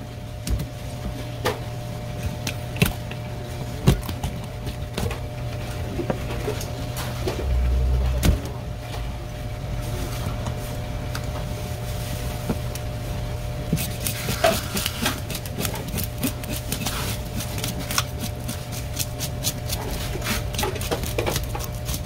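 Knocks and clicks of a live red seabream being handled and killed on a cutting board, over a steady machine hum; a low thump about eight seconds in, and a denser run of rapid clicks in the second half.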